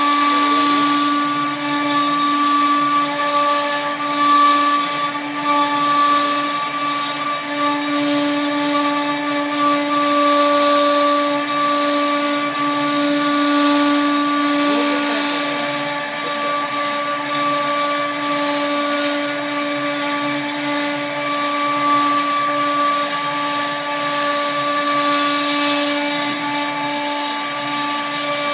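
Spindle of a large fbots fCarve CNC router running with a steady pitched whine while its bit routs grooves into a big board, the cutting noise swelling and easing slightly as the head moves.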